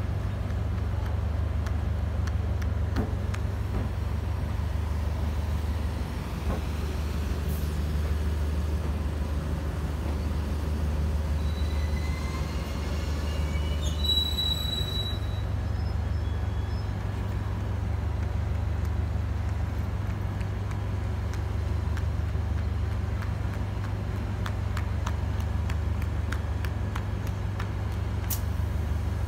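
Diesel engine of a DEMU (diesel-electric multiple unit) train running with a steady low drone. About halfway through, a short series of rising high tones ends in a brief shrill tone.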